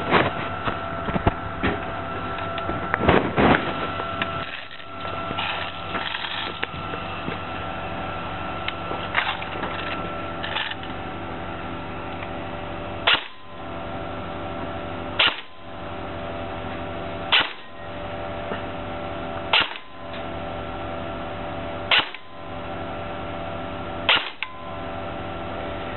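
Aim Top M4A1 S-System airsoft electric rifle (AEG) firing six single shots, each a short sharp snap about two seconds apart, after several seconds of scattered handling clicks and knocks.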